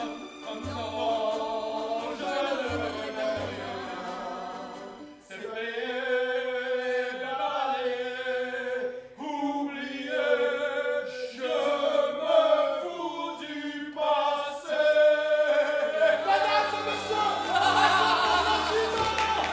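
Music with singing in an operatic, choral style, a sequence of long held notes that grows fuller and louder over the last few seconds.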